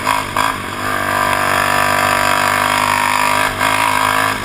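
ATV engine running at steady high revs under way on a dirt trail, heard from a camera mounted on the quad itself, with rushing air noise over the engine. It comes in suddenly and holds an even pitch.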